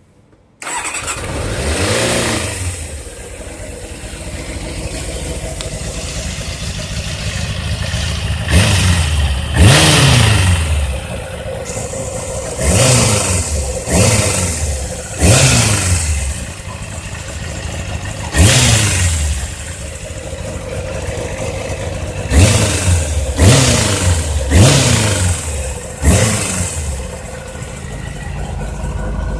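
Kawasaki ZZR 600 motorcycle's inline-four engine, idling, with about ten quick throttle blips. Each blip jumps up and the revs fall back to idle. The engine sound begins abruptly about half a second in, with a first rev soon after.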